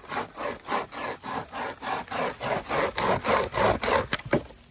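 Homemade pocket chainsaw, a length of saw chain pulled back and forth by hand, rasping through a log in quick, even strokes of about four a second. The sawing stops near the end with a couple of sharp knocks.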